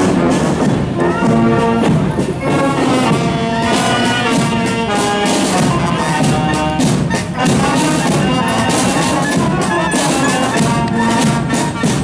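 Military band playing, with brass, clarinets and drums: held chords over a steady drumbeat.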